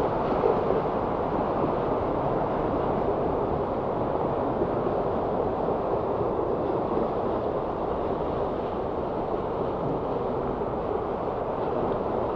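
Continuous road traffic noise: a steady low rumble with no single passing vehicle standing out.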